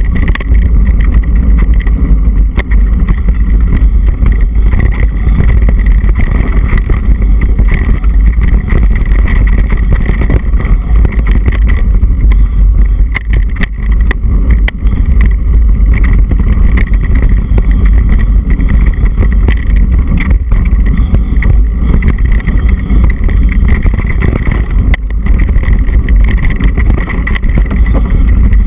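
Wind rumble on the microphone and the rattle and jolting of a mountain bike riding fast down a dirt singletrack trail, loud and continuous, with many small knocks.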